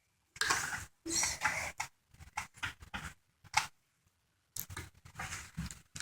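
Handling noises from taking apart a tablet: a string of short clicks, taps and brief scrapes, with short silences between them.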